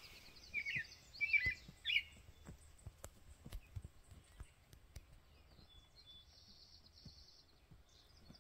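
Songbird calls: three short, bright chirps in the first two seconds, then a faint high trill around six to seven seconds in.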